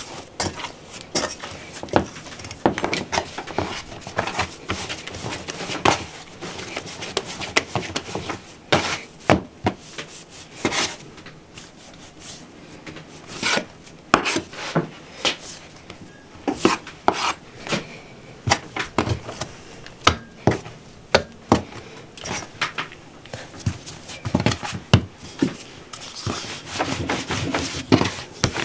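Bread dough being worked by hand: kneaded in an enamel bowl, cut with a knife on a wooden board and pressed flat on the floured board, giving soft rubbing and slapping with scattered irregular knocks on wood.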